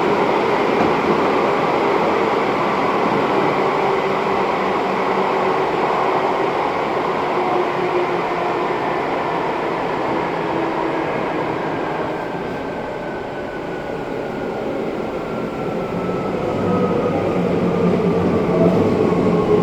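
Izukyu 2100 series electric train heard from on board, with running noise and a high-pitched whine from its Toyo Denki traction drive. The whine falls steadily in pitch as the train slows.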